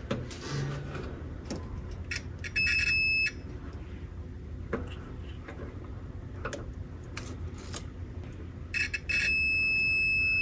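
Digital multimeter's continuity beeper: a steady high-pitched beep, briefly about two and a half seconds in and again for about two seconds near the end, sounding when the probe touches a terminal joined to the yellow wire, a near-zero-ohm connection. Light clicks and scrapes of the probe tip on the wire terminals in between.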